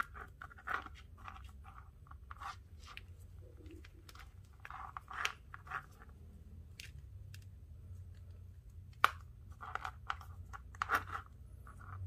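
Paracord strands handled and pulled through a knot by hand: short scratchy rustles of cord rubbing on cord and fingers, with a few sharp clicks.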